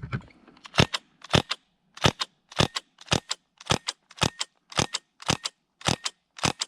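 Airsoft gun fired shot after shot at a steady pace of nearly two a second, each shot a sharp double click.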